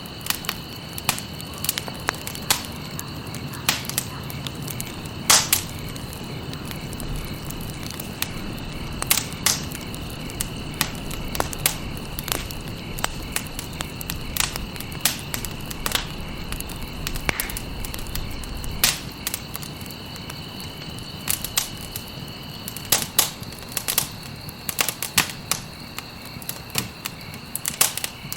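Wood fire crackling and popping: irregular sharp snaps over a steady low rumble of the flames, with a few louder pops. A steady high-pitched tone runs underneath.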